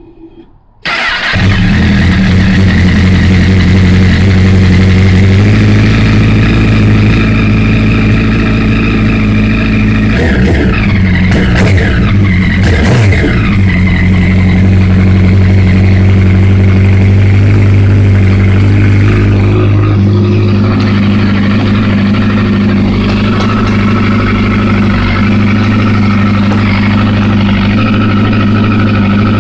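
A 2008 Honda CBR1000RR's inline-four engine fires up about a second in and settles into a steady idle through a loud exhaust. About ten seconds in it is revved up and back down twice.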